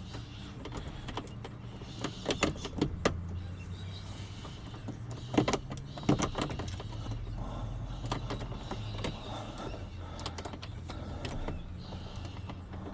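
Sharp metallic clicks and small scrapes of a lock pick and tension wrench working the pins of a worn flat-key lock barrel, in clusters about two to three seconds in and again around five to six seconds, over a steady low hum.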